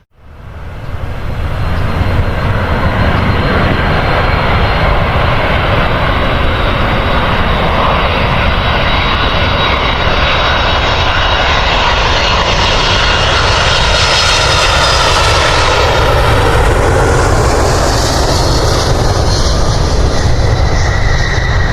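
An airliner passing close by with its engines roaring. The engine whine climbs in pitch as it approaches and drops as it goes past, about fifteen seconds in.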